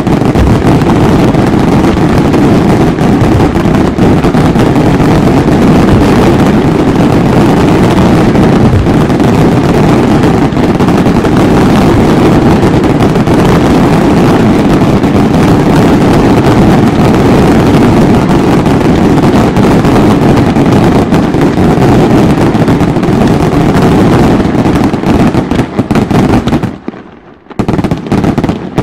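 Fireworks display at its height: a dense, continuous barrage of aerial shells and crackling bursts running together into one loud rumble. About 26 seconds in, the barrage stops abruptly, leaving a few separate bangs.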